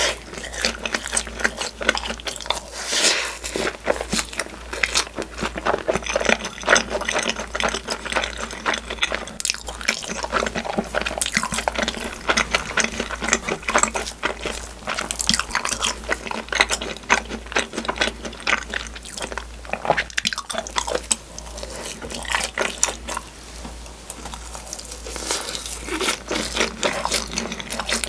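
Close-miked chewing of takoyaki (octopus balls), with steady wet mouth sounds and many small clicks. A steady low hum runs underneath.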